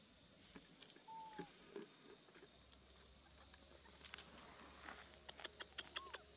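Steady, high-pitched drone of insects, unbroken throughout. A faint short chirp sounds about a second in, and a few faint clicks and a short call come near the end.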